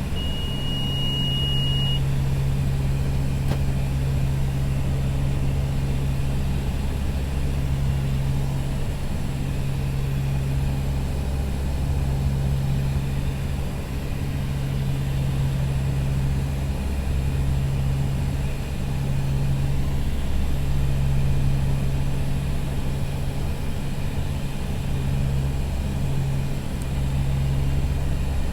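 Convair CV580's twin Allison 501 turboprop engines droning steadily at approach power, heard from the cockpit, the low drone slowly rising and falling in strength. A high steady tone sounds for about the first two seconds.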